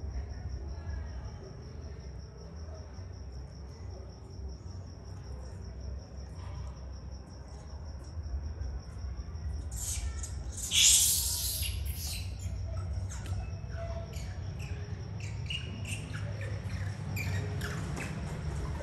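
Steady high-pitched cricket trill over a low background rumble, broken by a short loud rushing noise about ten seconds in, with small scattered clicks and chirps afterwards.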